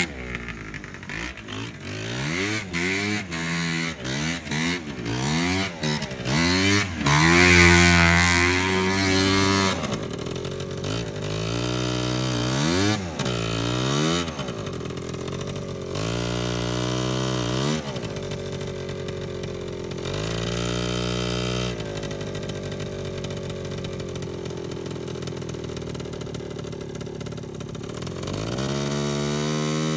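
ATV (quad bike) engine being revved: many quick throttle blips for the first ten seconds or so, then longer rising and falling revs, settling to a steadier run before the revs climb again near the end.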